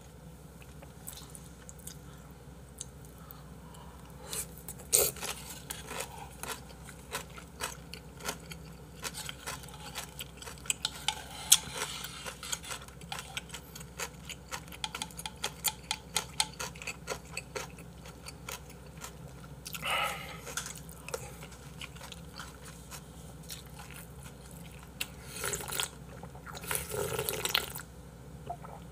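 A person eating seonji haejangguk close to the microphone: many small wet chewing clicks and spoon taps against the bowl, then near the end a few longer slurps of broth drunk straight from the bowl.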